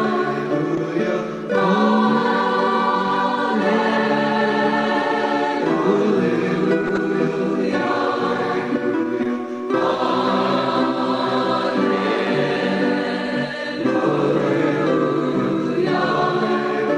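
Choral music: a group of voices singing sustained chords that shift every two seconds or so.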